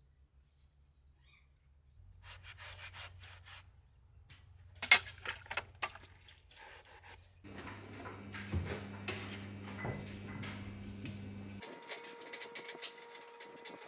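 Hands scrubbing in a metal bowl at a sink: quick, rough rubbing strokes with a sharp knock about five seconds in. Later a steady low hum runs under further scraping and cuts off abruptly near the end.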